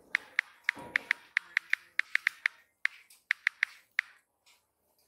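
Smartphone on-screen keyboard click sounds, one short tick per key press, in quick irregular runs as a message is typed, with a short pause and then a few more taps before it stops about four seconds in.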